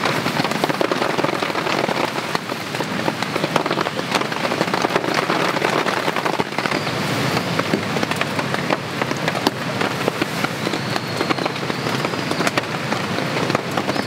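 Heavy rain falling steadily, a dense hiss of many small drop hits.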